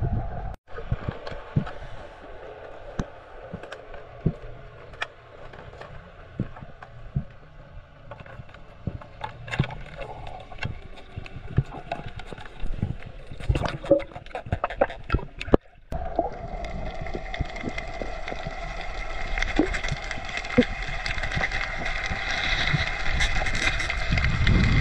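Underwater sound picked up by a diver's camera: a muffled watery rumble with many scattered clicks and knocks. It changes abruptly twice, and after the second change it becomes brighter and denser.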